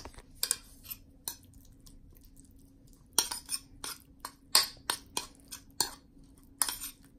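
Metal spoon clinking and scraping against a bowl while stirring chopped roasted peppers and capers with olive oil into a relish. A few clicks at first, a pause of about two seconds, then a quick, irregular run of clinks from about three seconds in.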